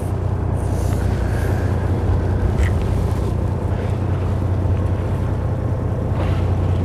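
Steady low hum of a fishing boat's engine running, under a haze of wind and water noise.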